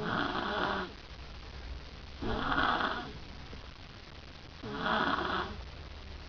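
A girl snoring: three snores, each under a second long and about two and a half seconds apart, with quiet breaths in between.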